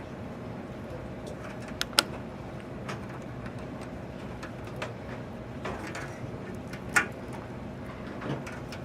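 Scattered sharp clicks and knocks of computer parts and cable connectors being handled and fitted, the loudest about two seconds in and again near seven seconds, over a steady low hum.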